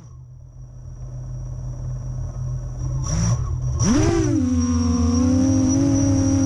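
QAV400 quadcopter's electric motors and propellers humming low and growing louder, then about four seconds in the pitch sweeps sharply up as the throttle is raised for takeoff, settling into a steady buzz in flight. A thin high whine runs under it throughout.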